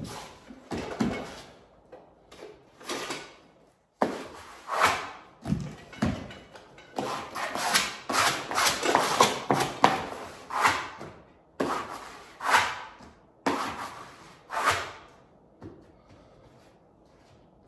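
Vinyl wallpaper being pressed and smoothed onto the wall by hand and with a plastic smoother: a run of short brushing, rustling strokes of the hand and tool over the paper. The strokes come thickest in the middle and thin out near the end.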